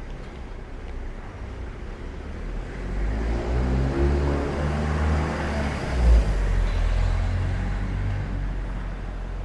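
A motor vehicle passing close by on the street: its engine rumble builds over a few seconds, is loudest around the middle, and fades away. There is a brief low thump at the peak.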